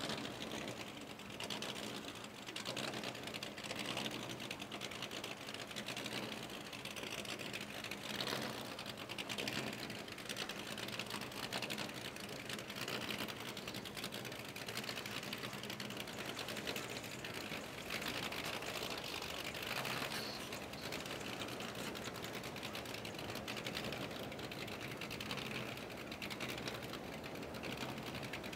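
A boat engine running steadily at idle with a fast, even mechanical clatter over a low hum.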